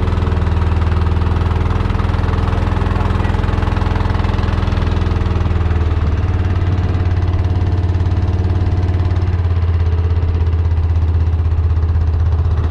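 Small fishing boat's engine running steadily, a deep even hum whose note shifts slightly a little past halfway.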